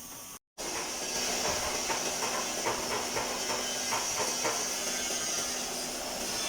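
Compressed air hissing steadily from a pneumatic body-shop tool, with scattered light clicks and a faint steady hum beneath. It starts after a brief dropout at an edit cut.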